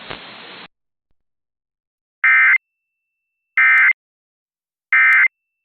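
Emergency Alert System end-of-message signal: three identical short, buzzy bursts of SAME digital data tones, about 1.4 s apart, marking the end of the tornado warning broadcast.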